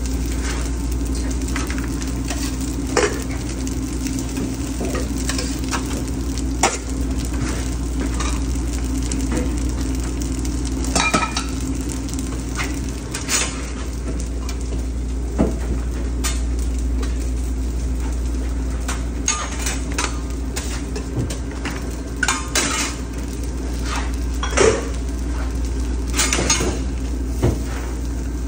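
Food sizzling on a flat-top griddle over a steady low hum, with scattered sharp clinks and scrapes of a metal spatula on the griddle and the serving plates.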